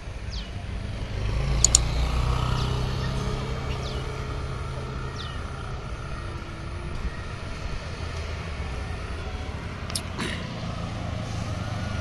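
Road traffic on a bridge: a low, steady motor-vehicle engine rumble that swells about a second in and holds for several seconds, with a motorcycle engine coming closer near the end.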